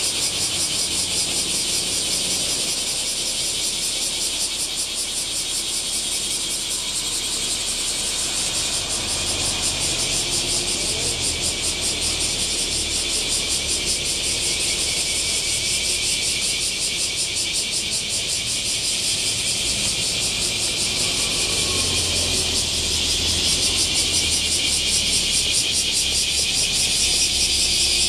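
Dense chorus of summer cicadas, a loud steady buzzing with a fast pulse, over low road-traffic noise that swells now and then as vehicles pass.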